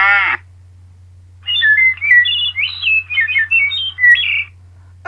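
Recorded bird song played for an animal-sound game: a quick run of varied chirps and whistles lasting about three seconds, starting about a second and a half in. The tail of a recorded cow moo falls away at the start, over a steady low hum.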